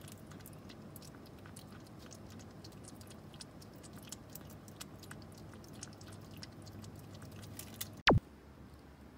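Kitten chewing and smacking on food from a dish: a run of quick small wet clicks. About eight seconds in, a short sharp tone sweeps steeply downward, louder than the eating.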